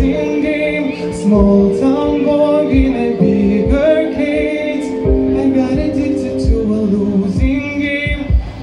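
A man sings a song into a handheld microphone, amplified over instrumental accompaniment, holding long notes.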